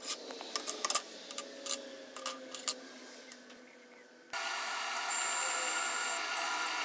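Metal parts, a brass rod and metal discs, clinking and knocking as they are handled on a hard floor. About four seconds in, a metal lathe starts up, drilling into a workpiece with a steady mechanical run and a thin high whine.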